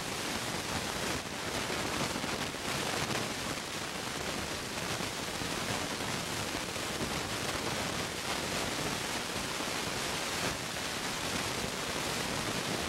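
Steady, even hiss with nothing else in it.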